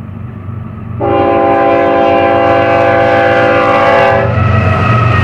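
Air horn of a GE ES44C4 diesel locomotive sounding one long blast of about three seconds, starting about a second in and cutting off sharply, over the steady rumble of the lead locomotives approaching: the horn warning for a grade crossing.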